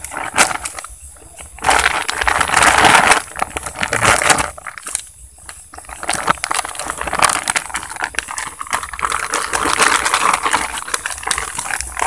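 Glossy plastic bag crinkling and rustling as hands work in it, in irregular bouts with short pauses about a second in and around five seconds in.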